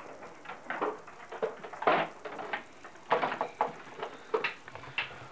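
Irregular rustling with small clicks and knocks as objects are handled, a few louder knocks about two and three seconds in.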